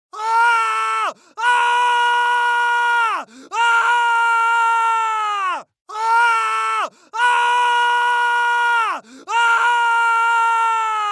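A person screaming in pain, about six drawn-out screams in a row, each held at a high steady pitch, then sliding down as it breaks off, with short gaps between.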